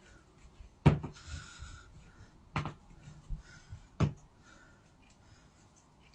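Joints cracking: three sharp pops about a second and a half apart, with a fainter click between the last two and a soft rustle after the first.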